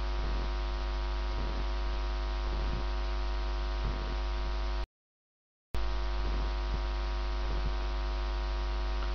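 Steady electrical mains hum with a buzzy stack of overtones and a faint pulse about once a second. It drops out to dead silence for under a second about five seconds in, then resumes.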